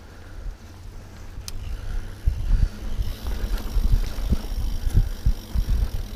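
Mountain bike rolling over a dirt singletrack, heard from a handlebar-mounted camera: wind buffeting the microphone and the tyres and bike jolting over bumps. It gets louder and bumpier from about two seconds in.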